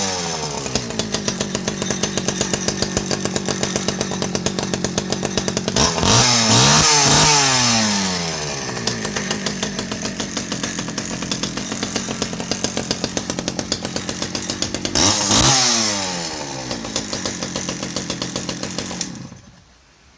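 Stihl 010AV two-stroke chainsaw running with its bar and chain removed: it falls back from a rev to idle, is revved up twice, about six seconds in and about fifteen seconds in, and is switched off near the end.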